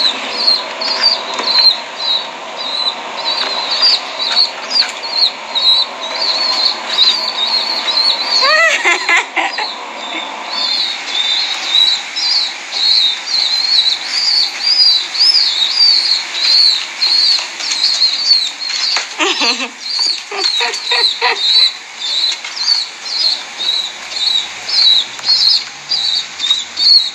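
Young bird peeping over and over in short, high, quick chirps, about three a second, the begging call of a hungry chick.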